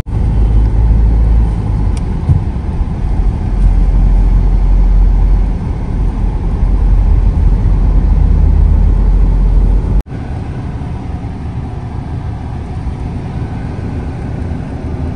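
Road and engine noise inside a moving Mahindra Scorpio's cabin: a heavy low rumble that drops abruptly about ten seconds in to a quieter, steady hum.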